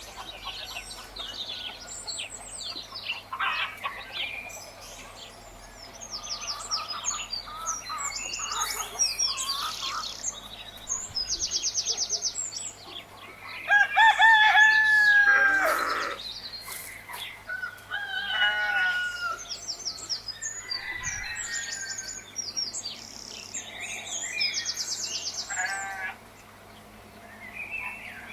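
Farmyard birdsong: small birds chirping and trilling throughout, and a rooster crowing once about halfway through, the loudest sound.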